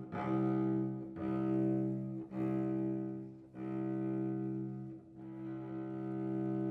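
Cello playing slow, sustained bowed notes, a new note starting about every one to one and a half seconds, the last one held for over a second and a half.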